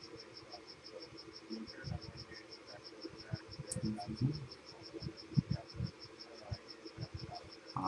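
Faint, rapid, even high-pitched chirping, about six pulses a second, like a cricket, over scattered soft low knocks and handling noise.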